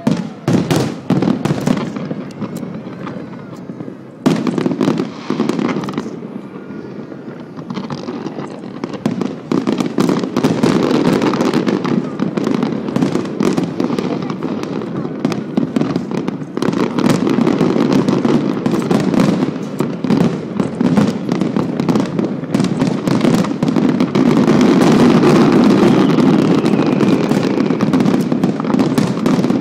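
Aerial fireworks display going off: sharp bangs at the start and again about four seconds in, building from about ten seconds on into a dense, continuous barrage of bangs and crackling.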